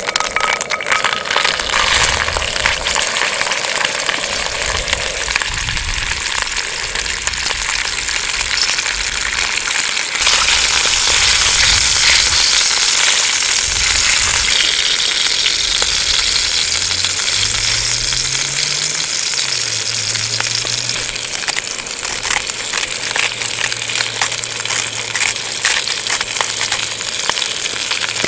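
Oil sizzling in a frying pan with minced garlic, then a block of beef searing in it; the sizzle grows louder about ten seconds in.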